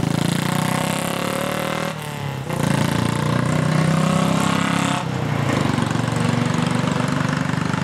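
Motorcycle engines running, dipping briefly about two seconds in and then coming back louder.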